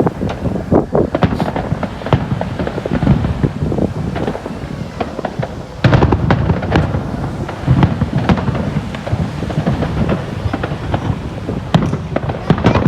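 Fireworks display: a steady run of bangs and crackling from exploding shells, with a sudden louder burst about halfway through.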